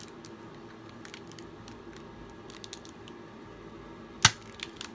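Scattered light plastic clicks and knocks from a Nerf blaster and its parts being handled, with one sharp, loud click a little over four seconds in and two smaller clicks just after it.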